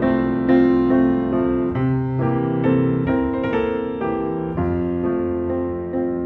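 Soft background piano music: gentle chords and melody notes struck about every half second and left to ring.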